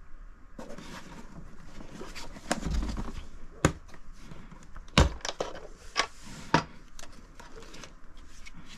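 Black hard plastic Glock 19 Gen5 pistol case being handled and set down on a mat with a dull thump, then its latches snapped open with four sharp clicks, followed by light rustling as the lid is lifted.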